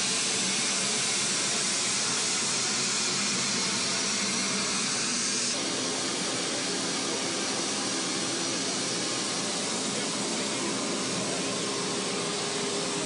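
Steady rushing noise of the Be-200 amphibious aircraft's turbofan engines. It changes abruptly about five and a half seconds in to a slightly quieter noise with a faint steady hum.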